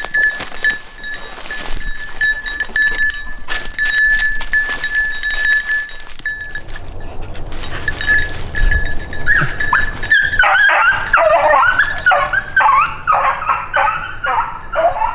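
Brush crackling underfoot for the first several seconds, then from about ten seconds in a beagle bays over and over, two to three cries a second: the hound has jumped a rabbit and is running its track.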